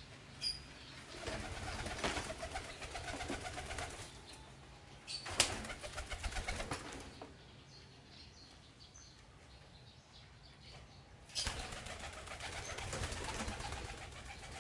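A young monkey scrambling about a wood-and-wire-mesh cage, the mesh and wooden perch rattling and clicking in three bouts, with a sharp knock in the middle one.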